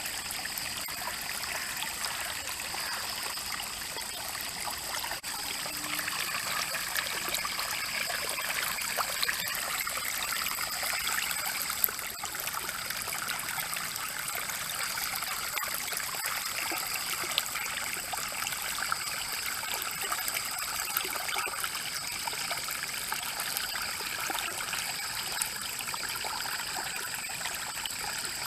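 Rain-fed stream flowing, a steady trickle of running water.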